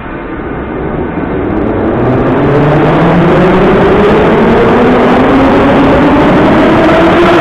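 Moscow Metro train pulling out of an underground station. About two seconds in, its traction motors begin a whine that rises steadily in pitch as the train accelerates, over loud running noise from the wheels that grows louder and then holds.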